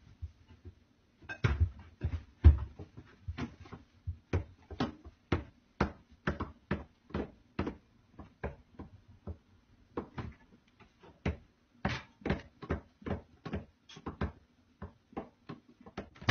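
Repeated knocking and clattering in a wooden kitchen cabinet, about two knocks a second, with a short lull near the middle. The heaviest thuds come about two seconds in.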